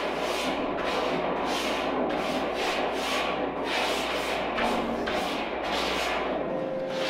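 Experimental music for bass clarinet, cello and live electronics: a dense, noisy texture in which hissing swells rise and fall roughly twice a second over a steady mid-range bed.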